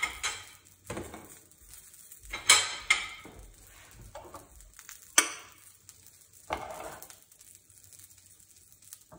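Metal spoon scraping and clinking against a frying pan and a bowl as cooked semolina porridge (upma) is scooped from the pan into the bowl. There are several sharp clinks, the loudest about two and a half seconds and five seconds in, and it goes quieter near the end.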